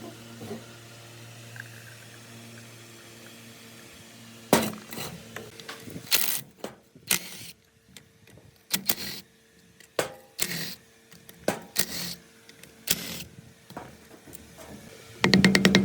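Workshop work sounds. A steady low hum runs at first, then comes a string of separate sharp knocks and scrapes of metal being handled and struck. Just before the end a loud, fast, even rattle of a machine starts.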